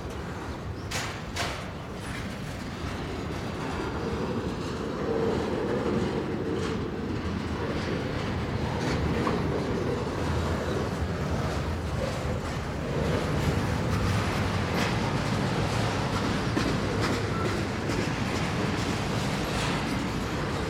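Canadian Pacific double-stack intermodal freight cars rolling past, a steady rumble of steel wheels on rail with scattered clicks and clatter as the wheels cross the rail joints and crossing. It grows louder a few seconds in.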